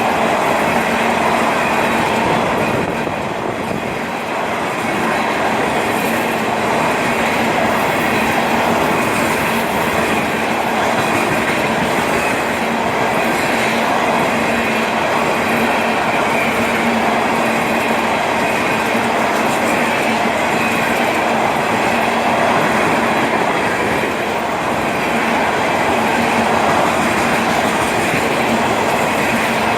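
Cars of a long mixed freight train rolling past, their wheels running loud and steady on the rails.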